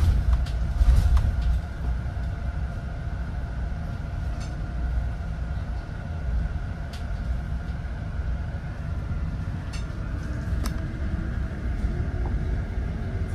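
Inside a moving electric city bus: the steady low rumble of the ride, with small rattles and clicks. Near the end a faint motor whine rises as the bus picks up speed.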